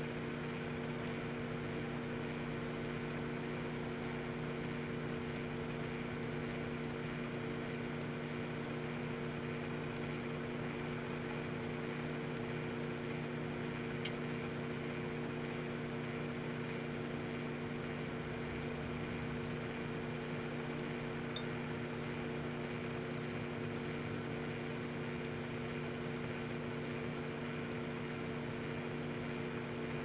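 Microwave oven running with a steady hum, with two faint ticks partway through.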